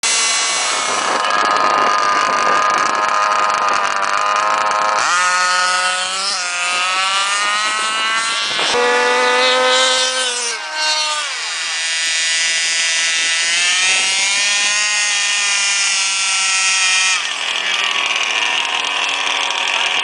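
Small engines of radio-controlled drag cars revving hard, their pitch climbing and falling, in a run of short clips that change abruptly every few seconds.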